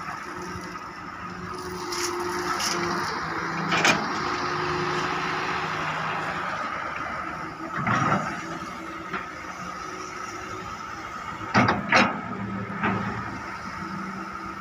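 Hydraulic excavator's diesel engine running steadily under load while it digs and loads gravel, with a few sharp clanks and scrapes from the bucket and gravel, the loudest a pair about twelve seconds in.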